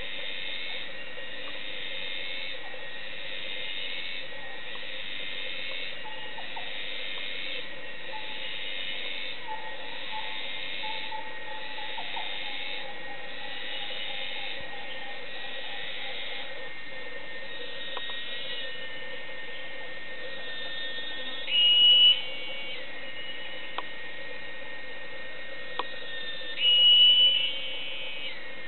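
Rainforest insect chorus: steady high-pitched shrilling that swells and fades in a regular pulse every second or two through the first half, then runs steadier. Two louder, higher calls of about a second each come near the end.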